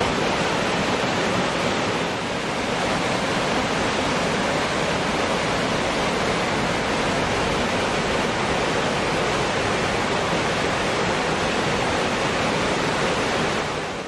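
Small woodland waterfall cascading over rocks: a steady rush of falling water.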